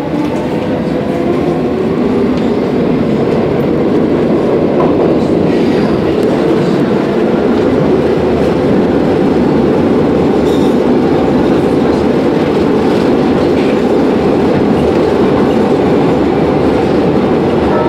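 ML90 metro train heard from inside the car, accelerating away from a station into the tunnel: a faint rising motor whine at first, then a steady loud rumble of wheels on rails.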